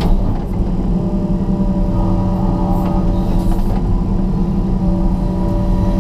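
John Deere 200LC excavator's diesel engine running steadily under working load, heard from inside the cab, as the boom and tiltrotator bucket dig and lift.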